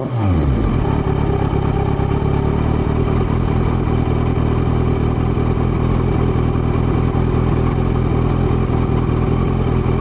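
Kawasaki Z900's inline-four running through a LeoVince LV10 carbon slip-on silencer, heard close to the exhaust, holding a steady engine speed after its revs settle at the start.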